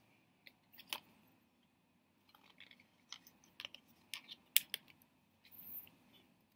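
Faint, scattered clicks and taps of fingers handling the iPhone's small paper insert that holds the SIM-eject pin, working the pin loose. The sharpest click comes a little past halfway.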